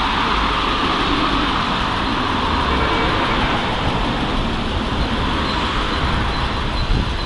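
Road traffic: cars driving past on a street, a steady wash of tyre and engine noise.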